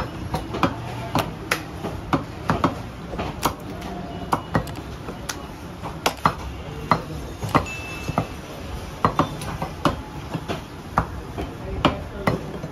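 Sharp, irregular knocks of blades striking wooden log chopping blocks while beef is cut, about two a second, over a steady low market hum.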